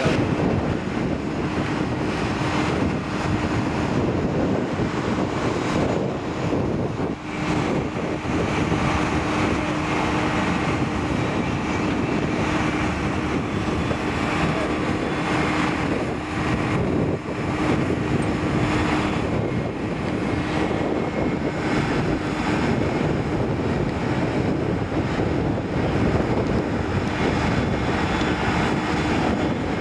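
Wind buffeting the microphone in gusts over a steady outdoor rumble, with a thin, steady droning tone that fades out about three-quarters of the way through.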